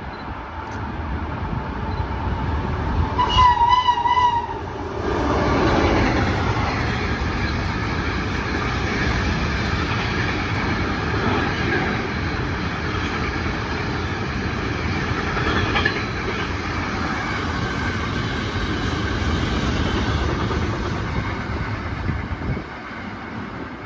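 An electric freight train sounds one horn blast of about a second and a half, then its wagons roll past with a steady rumble and the clatter of wheels over the rail joints, fading near the end as the last wagons go by.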